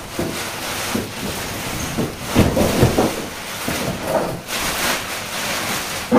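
Plastic packaging sheet rustling and crinkling as it is pulled off a washing machine during unboxing, with a couple of dull knocks from handling around the middle.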